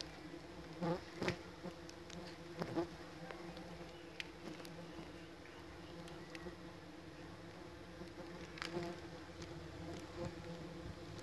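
Stingless bees buzzing as they fly around their nest entrance: a steady hum made of several pitches. A few brief knocks break in, the loudest about a second in.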